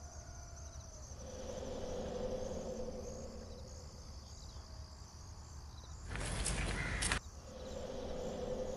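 Insects chirping in a steady, repeating high trill, over a low hum that swells and fades. About six seconds in, a loud burst of noise lasts about a second and cuts off abruptly.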